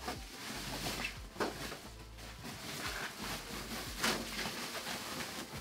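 Plastic bag and foam wrapping rustling and crinkling as they are pulled off a flat-screen TV, with sharper crackles about a second in and again about four seconds in.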